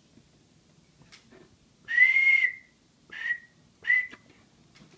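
A person whistling three notes of about the same high pitch. The first is the longest, and two short ones follow about a second apart.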